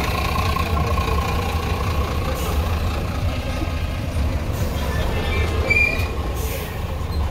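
Low, steady rumble of heavy diesel container trucks running close alongside, heard from inside a car, with a few faint thin high tones over it.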